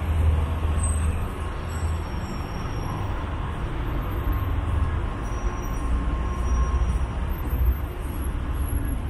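Steady road traffic: a low rumble of vehicles passing on the adjacent street.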